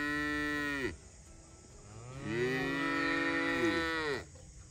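Cow mooing twice: a long moo that ends about a second in, then a second long moo of about two seconds, each rising and then falling in pitch.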